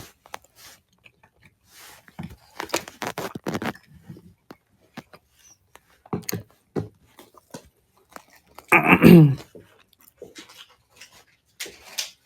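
Close-up mouth and eating sounds, someone chewing and crunching food, with scattered sharp clicks. About nine seconds in comes one short, loud vocal sound that drops in pitch.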